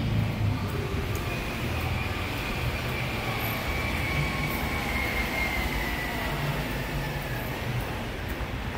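Vehicle driving slowly through a multi-storey parking garage: a steady low engine and road rumble. A faint high whine slides slowly down in pitch through most of the stretch.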